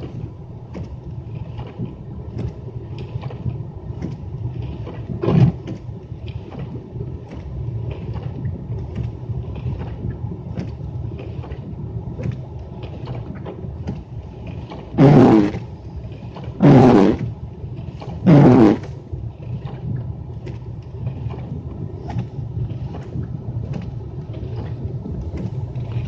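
Windshield wiper blades swishing across a snowy windshield, each stroke a short loud swish: once about five seconds in, then three in a row about a second and a half apart past the middle. Under it is the steady low rumble of the idling car, heard from inside the cabin.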